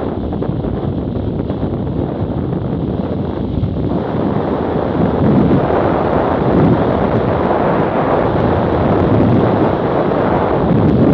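Wind buffeting the microphone of a camera on a moving BMW F800GS motorcycle, with the bike's running mixed in underneath. The rush grows louder about four seconds in.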